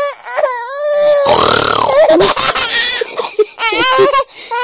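Seven-month-old baby squealing and laughing loudly in high-pitched, drawn-out shrieks, with a rough, breathy stretch about a second in.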